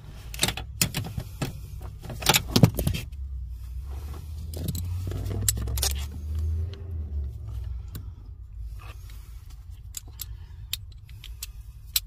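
Metal clinks and clicks of a ratchet wrench with a 13 mm socket working a nut on a Chevy Cobalt's clutch pedal bracket, loudest in the first three seconds, then scattered lighter clicks over a low rumble.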